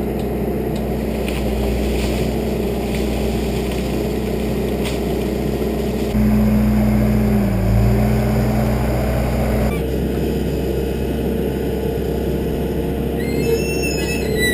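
Diesel engine of a John Deere backhoe running steadily. From about six to ten seconds in it runs louder, with a brief dip in pitch as it takes load. A few short high chirps sound near the end.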